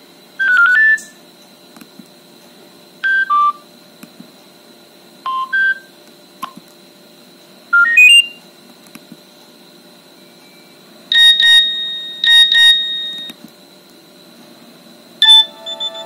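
Nokia 7610 built-in message alert tones previewed one after another: about seven short electronic chimes of two or three notes each, some stepping up in pitch, with pauses between them.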